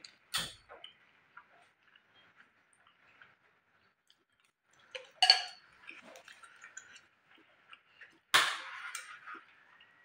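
Crisp rice crackers (kerupuk nasi) being snapped apart by hand and crunched: three sharp cracks spread through, the last followed by about a second of crackling, with small faint clicks in between.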